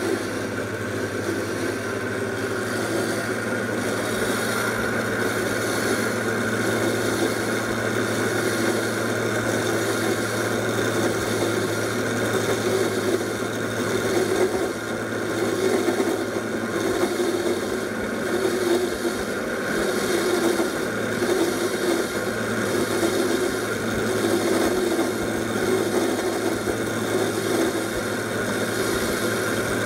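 Cold-cut chop saw running steadily, its slow-turning toothed circular blade cutting through a metal bar clamped in the vise: a steady motor and gear hum with a low note that swells and fades about once a second.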